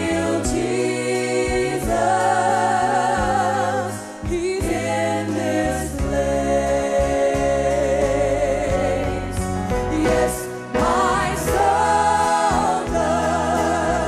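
Live gospel worship song: a woman soloist singing long held notes with vibrato, backed by a choir and band.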